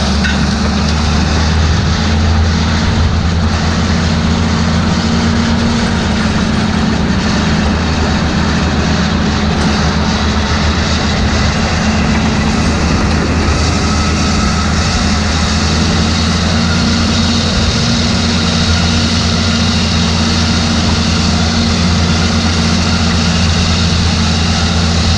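John Deere 4430 tractor's six-cylinder turbo diesel running steadily at working speed, then cut off suddenly at the end.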